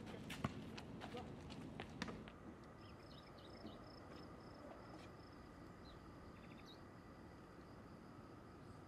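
Quiet outdoor ambience: a few sharp knocks in the first two seconds, then a faint steady background with thin, high, intermittent chirping.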